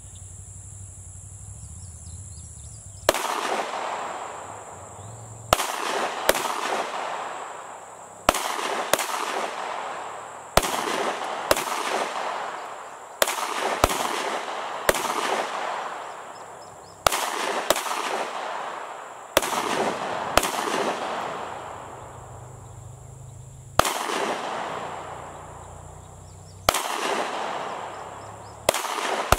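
Glock 23 .40-calibre pistol shots, about twenty at an uneven pace, some in quick pairs and threes a fraction of a second apart. Each sharp crack is followed by a long fading echo. The first shot comes about three seconds in.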